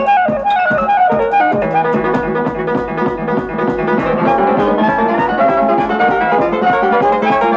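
Instrumental cartoon score: quick runs of plucked and keyboard notes over a steady beat.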